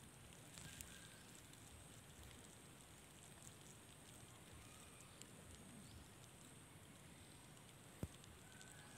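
Near silence: faint steady background hiss with a few soft ticks, and one sharp click about eight seconds in.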